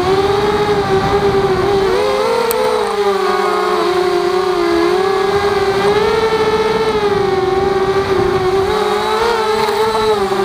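Walkera Rodeo FPV quadcopter's electric motors and propellers whining in flight. The pitch wavers up and down as the throttle changes, rising around two seconds in and again near six seconds, over a rush of air picked up by the on-board camera.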